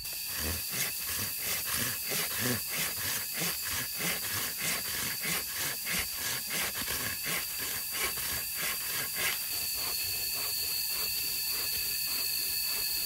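Forest ambience: a steady high-pitched hiss and drone, with a rhythmic pulsing about three times a second that stops about nine and a half seconds in.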